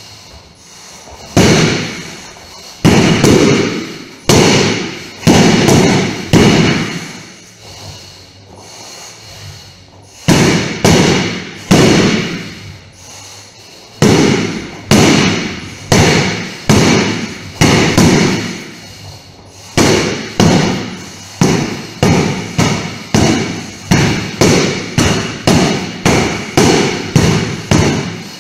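Training sword striking a hanging heavy punching bag again and again, each blow a sharp thud with a short echo. The hits come a second or more apart at first, then quicken to about one and a half a second through the last third.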